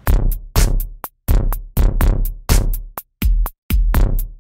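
Electronic music with a drum-machine beat, about two hits a second, each hit sliding down from a bright top into a deep bass.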